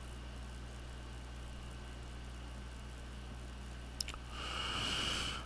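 Steady low hum, then a click about four seconds in followed by about a second of hissing sizzle as the soldering iron melts solder and flux on a wire joint.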